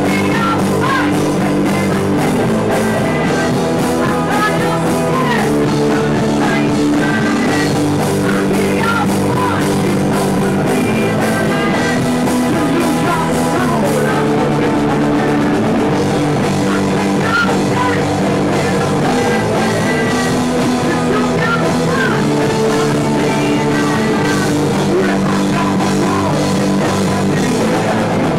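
Loud rock music from a full band, guitars and a drum kit playing without a break.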